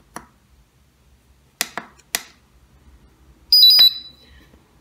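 iMax B6AC charger's push-buttons clicking three times, then its buzzer giving a loud, high-pitched, stuttering beep of about half a second as it starts a lead-acid charge and runs its battery check.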